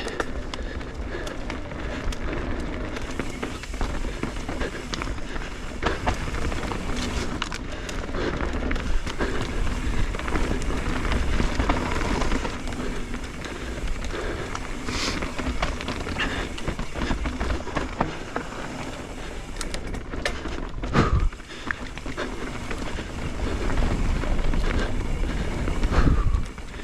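Mountain bike riding a dirt trail: wind rumbling on the microphone, tyres on dirt and the bike rattling and clicking over bumps, with a couple of sharper knocks late on.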